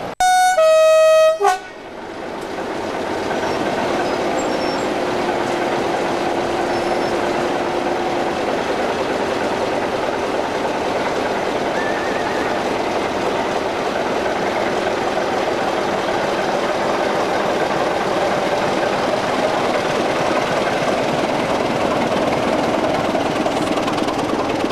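BR Class 26 diesel locomotive D5325 sounds its two-tone horn, a short high note followed by a longer lower one. Its Sulzer six-cylinder diesel then grows louder over a couple of seconds and keeps running steadily as the locomotive works, pulling its train away.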